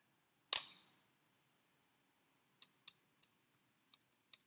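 A Texas Instruments TI-30X IIS scientific calculator set down on a desk with one sharp clack about half a second in, then a few separate plastic key clicks from about two and a half seconds on as a subtraction is keyed in.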